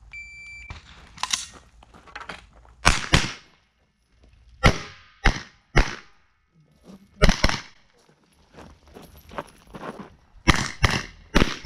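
A shot timer's electronic start beep sounds for under a second, followed by a string of about ten rifle shots fired in singles and quick pairs at steel plates. Some shots are followed by a brief metallic ring from the struck steel.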